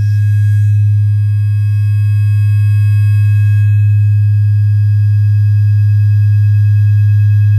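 Loud, steady electronic drone: a low, pure hum held without change, with faint high steady whistling tones above it.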